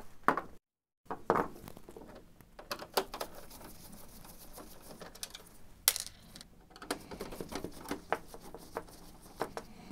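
Small screws and a Phillips screwdriver on an inkjet printer's plastic casing, with the screws being dropped into a plastic lid: light, scattered clicks and taps, a couple of them louder near the middle.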